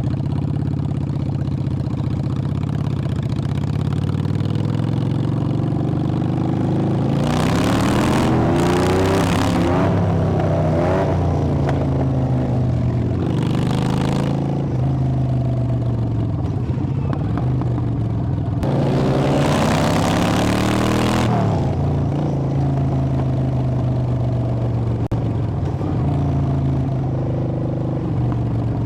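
Honda Shadow VT600's V-twin engine and exhaust riding along, revving up with rising pitch through the gears at two points, with a rush of wind, then settling back to a steady cruise.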